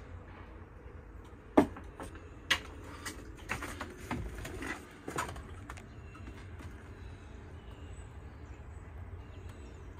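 Footsteps and knocks on the debris-strewn floor of a gutted mobile home: one sharp knock about a second and a half in, then about half a dozen lighter steps and clatters over the next few seconds, over a steady low rumble.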